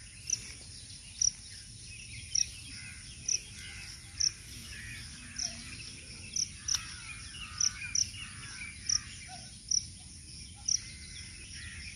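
Outdoor ambience: a steady high insect drone, with a short, sharp high chirp repeating about once a second.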